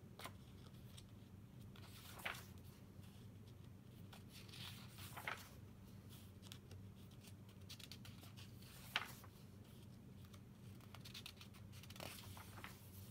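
Paper pages of a paperback workbook being turned by hand: soft rustling with a few sharp page flicks, the loudest about nine seconds in, over a faint low steady hum.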